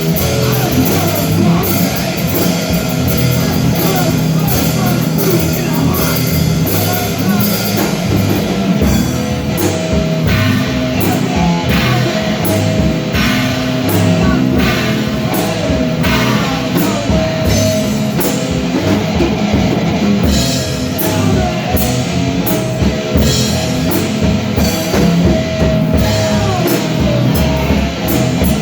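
Loud rock music with a steady drum-kit beat and guitars, possibly with singing.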